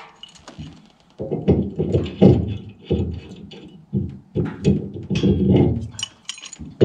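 Pipe wrench tightening Teflon-taped threaded pipe fittings on a transfer tank pump, heard as a run of uneven strokes with short pauses, starting about a second in.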